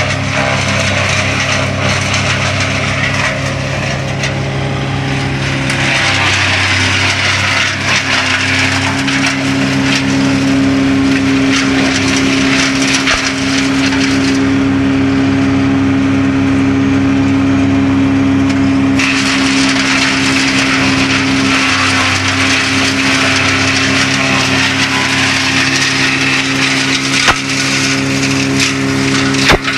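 Bugnot BVE 55 branch chipper's diesel engine running steadily while the machine chips conifer branches, a dense cracking and splintering of wood over the engine's hum. The chipping noise eases for a few seconds around the middle, then picks up again as more branches go in.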